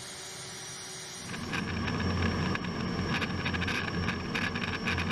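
Steady rumble and hiss of an A-10 Thunderbolt II's engines and airflow in flight, heard inside the cockpit. It comes in louder about a second in, after a faint low hum.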